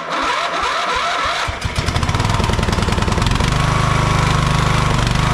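Briggs & Stratton riding-mower engine cranked by its electric starter, catching about a second and a half in and then running steadily with an even pulsing beat. Its crankcase is overfilled with oil at this point.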